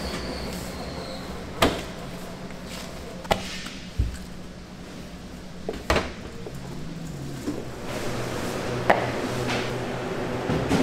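Irregular sharp knocks and thuds of bakery work, about five in all, one of them a deeper thud, over a steady low hum of machinery.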